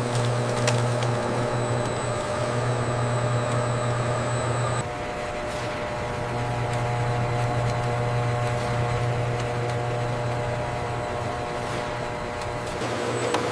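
Factory processing machinery running with a steady low hum and a few steady whining tones above it. The sound shifts abruptly about five seconds in.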